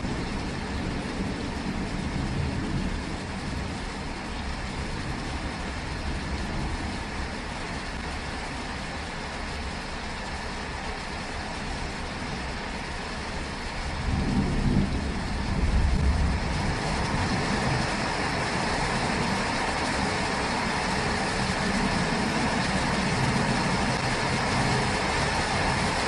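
Steady pouring rain with a low rumble of thunder that swells about fourteen seconds in and peaks around sixteen seconds. The rain grows louder after the rumble.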